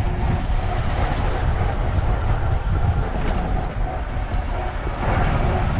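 A vehicle driving slowly over a rough dirt-and-snow road, with a steady low rumble of tyres and engine.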